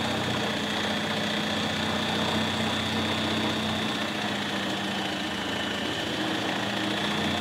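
Cordless drill spinning a Honda UT3 quarter-midget engine over by its flywheel nut, held back to a lower speed for an ignition timing check: a steady drill-motor whine over the hum of the engine turning.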